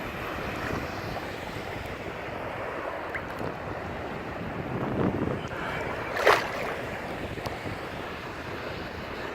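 Ocean surf washing steadily with wind buffeting the microphone, and one brief sharp burst of noise about six seconds in.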